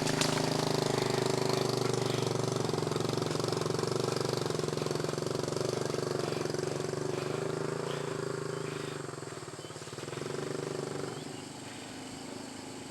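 Motorcycle engine running at a steady speed, gradually fainter and dropping away about eleven seconds in.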